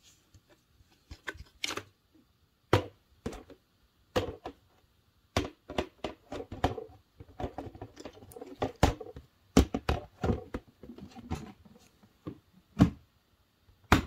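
Hard plastic clicks and knocks from the bag-compartment cover and body of a 1995 Dirt Devil MVP upright vacuum being handled with the motor off: a dozen or so sharp, irregular knocks with softer rustling between, the loudest near the end.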